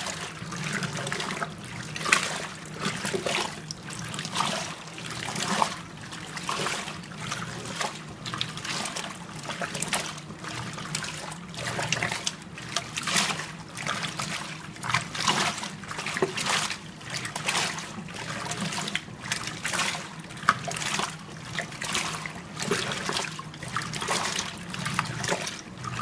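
Danby DWM17WDB portable top-load washer agitating in its wash cycle: clothes and water are whipped back and forth, giving a regular rhythm of swishing and splashing surges over a steady low motor hum.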